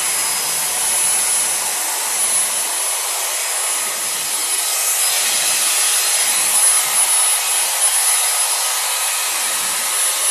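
Dyson Airwrap styler with its round hot-brush attachment blowing air through hair: a steady rush of air with a thin high-pitched motor whine over it.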